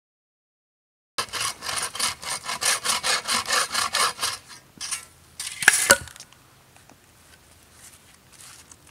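A small bow saw cutting through a green conifer log in quick back-and-forth strokes, about four a second, starting about a second in; the strokes thin out, and a sharp snap, the loudest sound, comes just after the halfway point as the cut goes through. Faint rustling follows.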